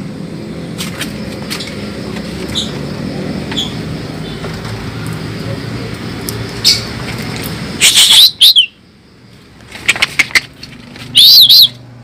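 Caged Javan pied starling (jalak suren) calling loudly: a harsh burst with short whistled glides about eight seconds in, and a second loud burst of rising-and-falling whistles near the end. A steady low rumble and a few faint clicks lie under the first part.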